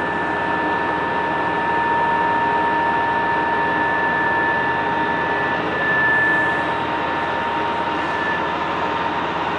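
Loud, steady machine drone with a steady high whine, the higher whine swelling briefly about six seconds in and fading out near the end.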